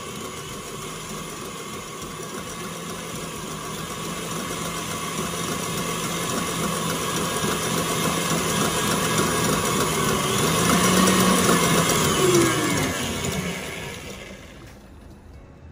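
Electric stand mixer running, its wire whisk beating egg whites in a stainless steel bowl. The motor hum grows louder, then drops in pitch and fades over the last few seconds as the mixer slows. The whites are being whipped toward stiff peaks.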